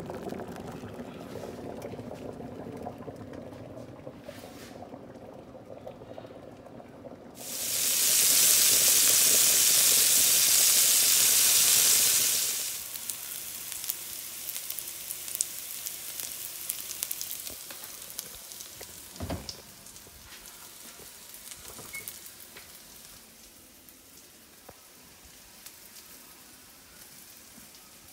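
A pot of water bubbling at a rolling boil, then a sudden loud sizzle for about five seconds, cutting off sharply, followed by sliced onions frying softly in a pan with scattered small pops.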